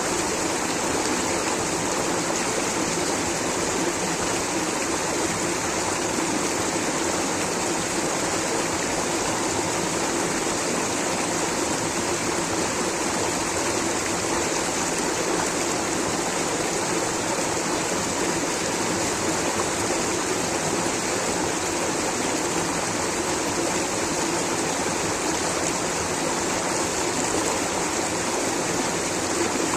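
Rushing water of a stream or small waterfall: a steady, unbroken rush with a bright hiss.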